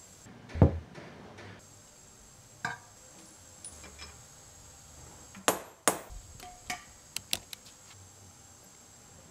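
Tools knocking and tapping on metal parts: about ten sharp metal knocks at irregular spacing, the loudest about half a second in and three quick taps about two-thirds through, some ringing briefly.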